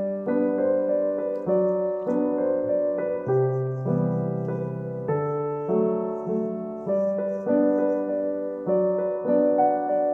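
Background piano music: a gentle melody of sustained chords with new notes struck about every half second to second.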